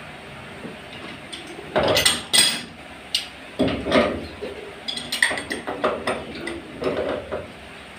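Metal tool clanking and clinking against a water pump's pipe fittings as they are being undone, with loud knocks about two seconds in and again near four seconds, then lighter clicks.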